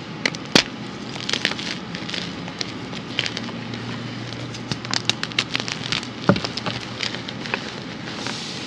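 Hands crushing and crumbling red-dyed reformed gym chalk blocks in loose chalk powder: a dry, steady crunch full of sharp crackles and snaps. The loudest snap comes just after the start, and a duller thump comes about six seconds in.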